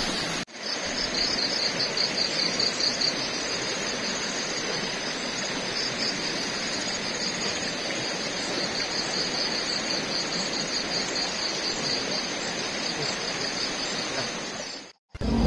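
Insects chirring in a fast, pulsing high trill over a steady rushing hiss; the sound cuts off near the end.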